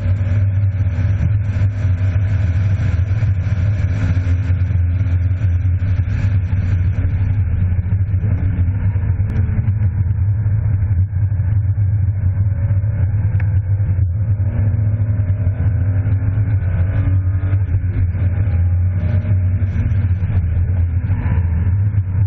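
BMW E36 325i's straight-six engine on track, its pitch rising and falling repeatedly as it accelerates, lifts and shifts. It is heard from inside the cabin over a steady low drone of road noise.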